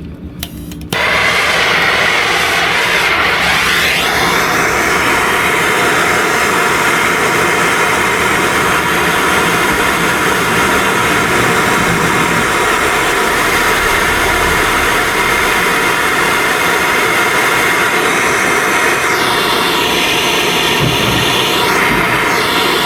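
MAP gas torch burning with a steady roaring hiss, lit abruptly about a second in, as it heats a copper fitting on a brass valve body for soldering.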